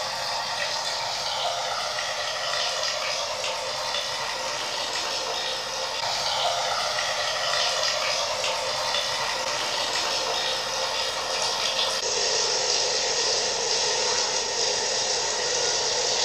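A steady, even rushing noise like running water, with little low end; its texture changes and thickens about three-quarters of the way through.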